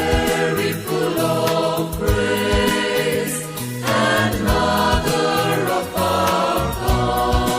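Christian devotional song: sung voices, tagged as a choir, holding long notes over a steady bass and beat.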